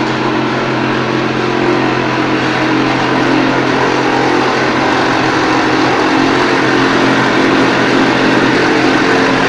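Automatic wall-plastering machine running steadily: a constant motor hum under loud mechanical noise.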